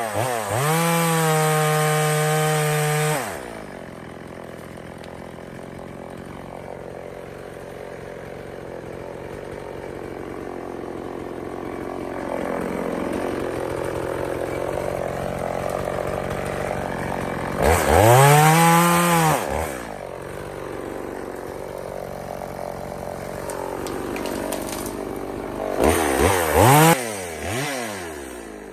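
EFCO two-stroke chainsaw run at full throttle for the first few seconds, then dropping to a lower, uneven running. It is revved up and back down once more about two-thirds of the way through, and in two quick blips near the end.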